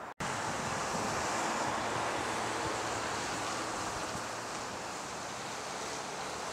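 Steady outdoor rushing noise, like wind on the microphone. It starts abruptly after a brief dropout at the very start.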